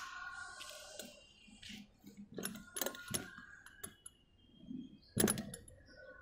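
A few light clicks and knocks of handling, the sharpest about five seconds in, over a faint thin steady tone.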